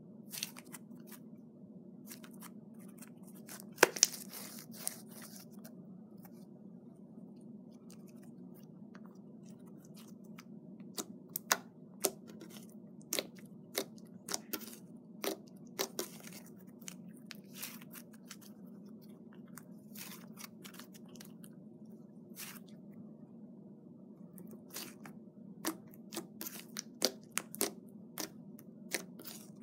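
Homemade fluffy slime made with PVA glue and shaving foam being squished and kneaded by hand, giving irregular small pops, clicks and crackles, over a steady low background hum.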